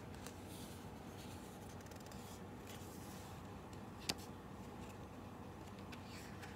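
Faint rustle of a large picture book's paper page being handled and turned, with one sharp tick about four seconds in, over a low steady room hum.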